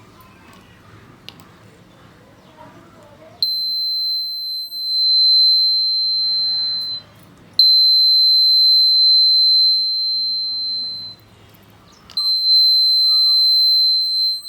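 High-pitched electronic buzzer tone sounding three times in long, steady beeps of about three and a half seconds each, with short pauses between. The first comes in after about three seconds of near-quiet background.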